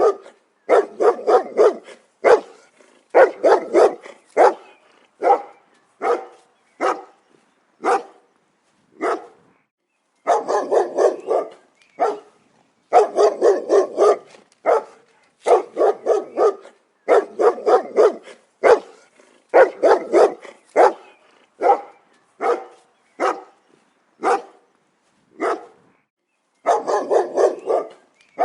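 A dog barking repeatedly in quick volleys of several barks, with short pauses between the volleys.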